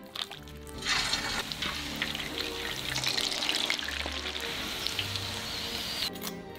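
Battered chicken pieces deep-frying in hot oil in a wok during the second fry: a dense sizzle with fine crackling that comes in about a second in and cuts off just before the end. Soft background music underneath.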